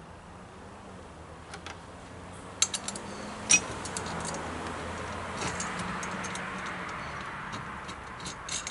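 Small metal clicks and clinks of nuts and bolts being fitted into the steel frame of a motorcycle tire change stand, scattered irregularly, with a soft scraping hiss through the middle.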